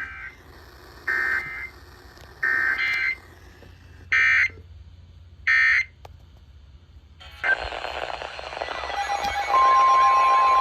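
Emergency Alert System digital data bursts: five short, buzzy tone bursts about a second apart, the coded end of a weather warning broadcast. Then a hissy radio signal comes in and a steady high alert tone starts near the end.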